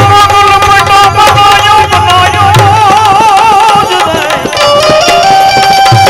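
Indian devotional folk music without words: a melody instrument holds long notes that waver in a wide vibrato around the middle, over a tabla beat and sharp percussion strokes.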